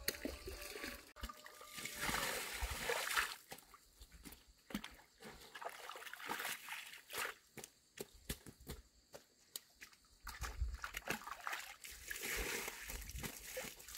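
Water splashing and sloshing as it is scooped and poured from plastic basins into a shallow pool, with water trickling off a concrete slab. The splashes come irregularly, with longer rushes of water near the start and near the end.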